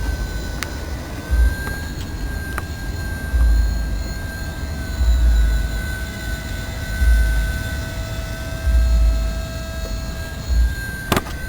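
Radio-controlled model airplane's motor running steadily in flight, a high whine that wavers slightly in pitch, with gusts of wind buffeting the microphone and a sharp click near the end.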